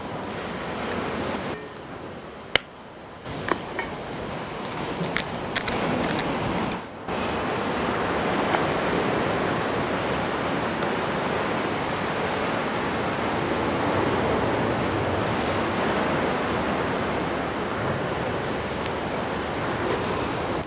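A few sharp knocks of the ladle and eggshell against an iron kadai as an egg is broken into mushroom soup. Then, from about a third of the way in, a steady sound of the soup simmering as the ladle stirs the egg through it.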